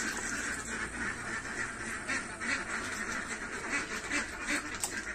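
Ducks quacking repeatedly in short, irregular calls over a steady background hiss.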